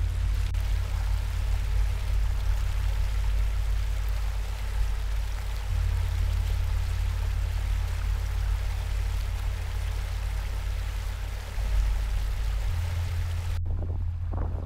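Seawater washing and foaming over the edge of a granite breakwater: a steady rushing splash over a deep low rumble. The rush cuts off abruptly near the end, leaving quieter lapping.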